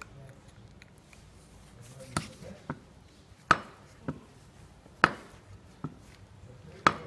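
Sharp metallic clicks and taps as a screwdriver levers up the crimped edge of the metal dust-boot collar on a Land Rover Discovery 3 propeller shaft, working around the joint. There are about seven clicks, the loudest roughly every second and a half, with fainter ones between.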